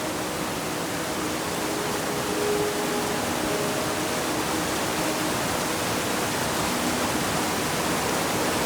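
River water rushing: a steady, full hiss of flowing water with no breaks.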